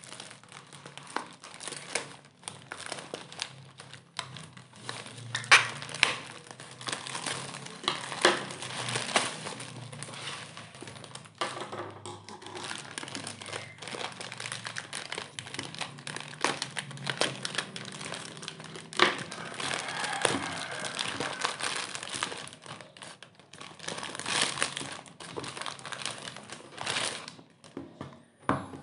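Plastic packaging crinkling and crackling as a courier mailer is cut open with scissors and the air-cushion wrap inside is pulled off, in an irregular run of rustles and sharp crackles.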